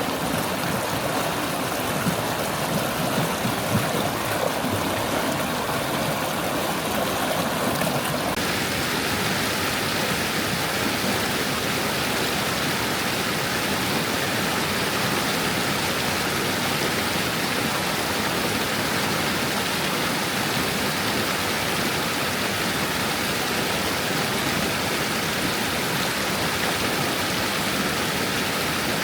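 Stream water flowing and babbling over stones, a steady rush of water. About eight seconds in, the sound changes abruptly to a smoother, brighter hiss of water.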